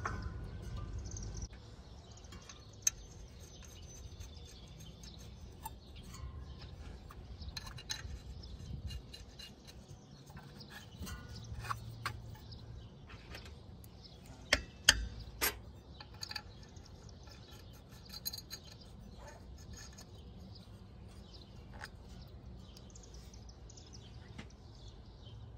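Scattered light metal clinks and taps as a water pump pulley and its bolts are handled and fitted on an engine's water pump, with two sharper clinks close together about midway, over a faint steady background.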